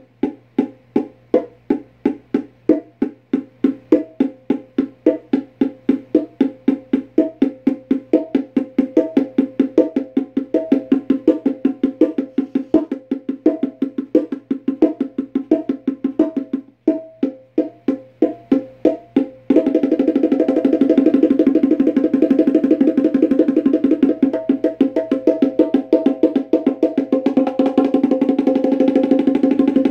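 Bongos played by hand: a steady beat of alternating higher and lower drum strokes, about three a second. About two-thirds of the way through it breaks into a fast continuous roll.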